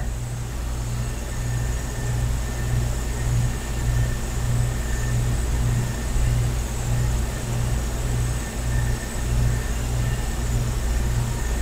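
A steady low mechanical hum and rumble with a faint hiss over it, swelling and easing slightly about twice a second.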